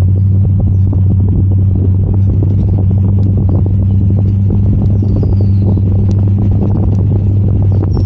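Four-wheel-drive vehicle driving on a sand track: a steady engine drone with a low hum, and many small knocks and rattles from the ride.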